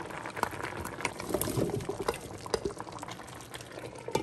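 A steel pot of chicken pieces boiling, bubbling and popping steadily, with small plops and knocks as thick chili seasoning paste is scraped in from a bowl with a wooden spoon.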